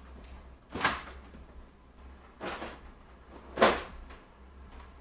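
Black side-by-side refrigerator being opened and things taken from it: three short clunks, about a second in, about two and a half seconds in, and the loudest just before four seconds in, over a low steady hum.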